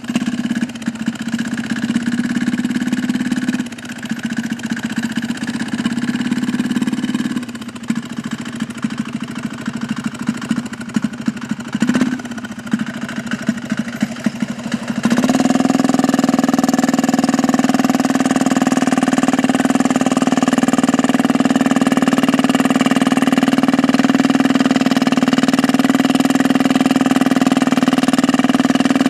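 Small engine running with its note and load changing unevenly for the first half. About halfway through it settles into a louder, steady run.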